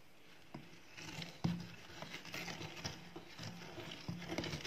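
A wooden stick stirring soil into water in a glass tumbler: irregular knocks and clicks of the stick against the glass, with the swirling of the muddy water, starting about a second in.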